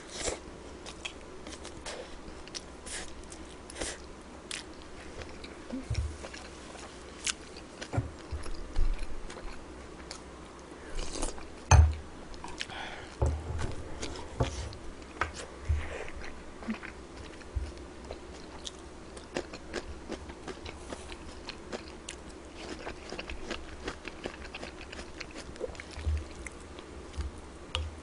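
A person chewing and biting food close to the microphone, with scattered small clicks and knocks and one sharper knock about twelve seconds in.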